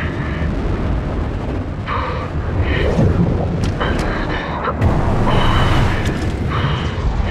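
F/A-18 fighter jet's engines and rushing air, heard from inside the cockpit during a fast low-level flight, as a deep steady roar with a few sharp cracks. Short strained grunts from the pilot break through it every second or so.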